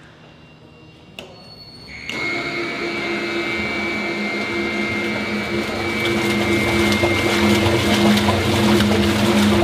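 Peerless stainless steel slurry mixer with a bottom electric rotor drive: a click about a second in, then the mixer starts suddenly about two seconds in and runs with a steady hum and a high whine. A rushing noise builds over the next few seconds as the rotating blades churn the bowl's contents.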